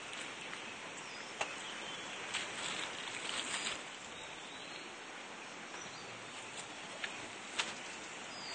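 Steady outdoor background noise with no running engine, broken by a few sharp clicks and a short busier patch of rustling a little over two seconds in.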